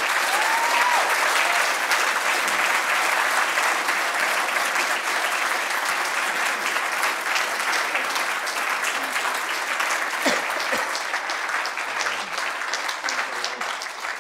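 Audience applauding steadily in a lecture hall, a dense clatter of many hands clapping.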